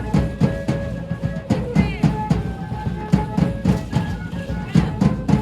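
Danza de pluma music: a drum beating a quick, steady rhythm under a melody of held notes that step up and down.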